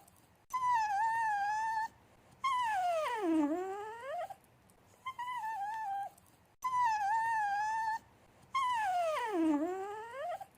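Dog whining in a high voice, the attention-seeking whine of a dog asking for affection: five whines with short gaps, some held at a wavering level pitch, and two long ones that slide down in pitch and climb back up. The same sequence of whines comes twice, as if looped.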